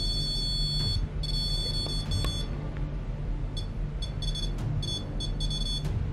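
REM pod alarm beeping in high-pitched electronic tones: two long beeps in the first couple of seconds, then after a short gap a run of short, irregular beeps. It goes off when someone comes close to it.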